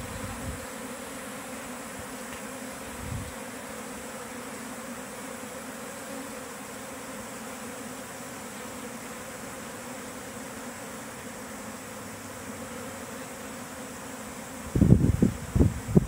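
Steady hum of a honey bee swarm buzzing as it walks into a hive box; the swarm has settled and the hum is no longer at its first pitch of excitement. Wind buffets the microphone in loud low gusts near the end.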